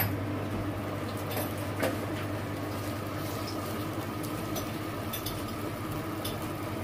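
Seasoned water simmering in a frying pan under a heap of raw vegetables, with a steady low hum beneath it and a few light clicks.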